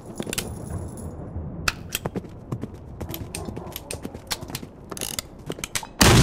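Online video slot's reel-spin sound effects: a low rumble with scattered ticks and clacks as the reels spin and land. A sudden loud burst near the end as a small win lands.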